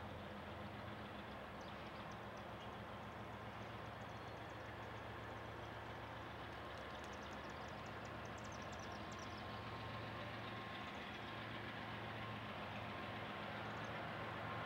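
Distant BNSF intermodal train's lead GE diesel locomotives approaching at speed, a steady low engine drone that slowly grows louder.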